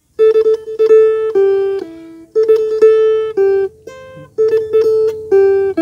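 An Isan phin, a fretted Thai lute, played in a short melody: clusters of quick repeated plucks on a high note that step down to lower held notes, played as about three phrases with short gaps between them.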